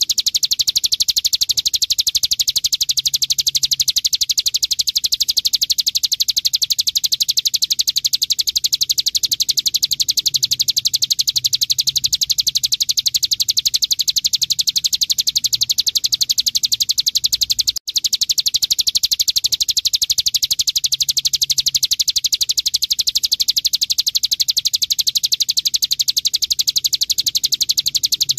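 Ciblek gunung, a prinia, singing its 'bren' song: a very fast, unbroken rattle of high chirps, with one split-second break about eighteen seconds in.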